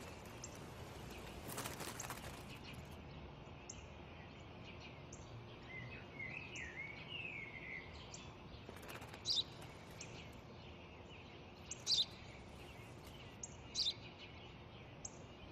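Sparrow chirping: short, high cheeps every second or two, with a brief warbling call about six seconds in, over faint outdoor background noise. A short broad noise sounds about two seconds in.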